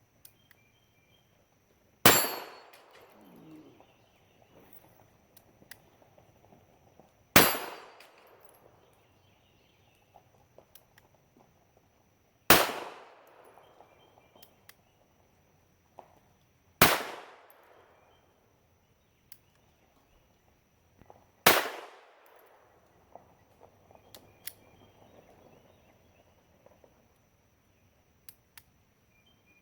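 Five single pistol shots from a Unique Rr-51 .32 ACP pistol, spaced about four to five seconds apart, with faint clicks in between. The slow pace fits the fault the shooter describes: the slide cycles but does not cock the hammer fully, so he has to cock it by hand before each shot.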